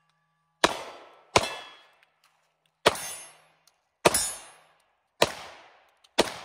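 Six shots from a Tisas 1911 Carry DS double-stack 9mm pistol, fired at an unhurried, uneven pace, each shot dying away over about half a second.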